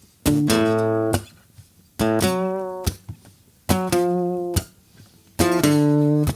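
Acoustic guitar strumming the intro of a rock song: four loud chords about a second and a half apart, each left to ring briefly and then choked, with short muted strokes in between.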